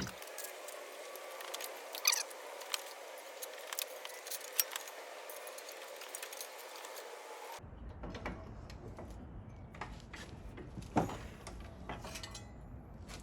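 Light metallic clinks and rattles from handling a thin metal intake manifold gasket at a bench vise. There are scattered faint clicks, with a few sharper knocks.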